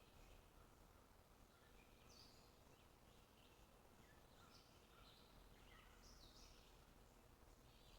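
Faint bird chirps: short high notes, some sliding in pitch, coming every second or so over a low hiss.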